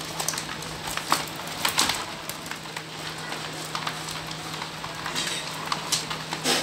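Live crabs scrabbling in a plastic tub: irregular clicking and scratching of shells and legs against the plastic and one another, over a steady low hum.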